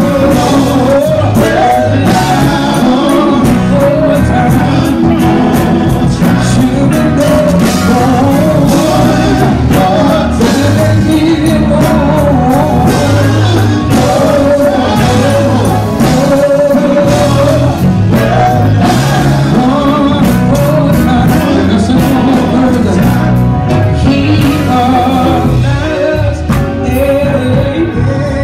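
A vocal group of men singing live over instrumental backing with a steady beat.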